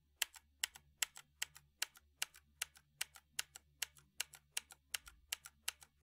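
Blue mechanical key switch on a UHURU UMK-100 60% keyboard being pressed and released over and over, about two and a half times a second, each press a sharp click followed by a softer release click.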